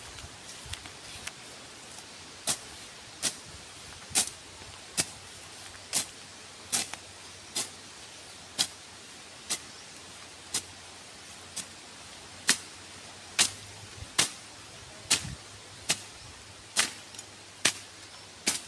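A steady run of about twenty sharp strikes from a hand tool, a little under one a second, some of the later blows louder.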